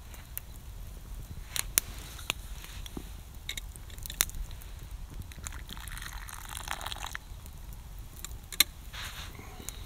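Open wood campfire crackling, with sharp pops from the burning logs every second or two. A brief rustling hiss comes about six seconds in.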